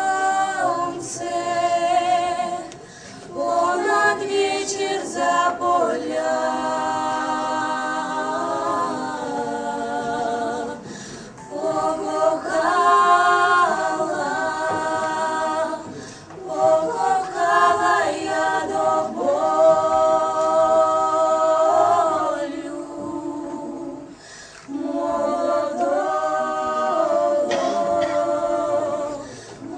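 Unaccompanied voices singing together in harmony, a cappella. They sing long held notes in phrases several seconds long, with short breaks between them.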